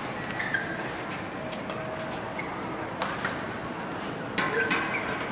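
Three sharp badminton racket hits on a shuttlecock, spaced irregularly, over the steady murmur of a crowd in a large hall.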